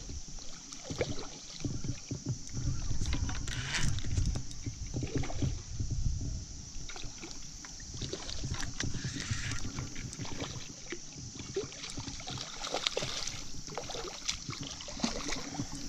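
Water sloshing and splashing, with irregular knocks and rustles over a steady high hiss.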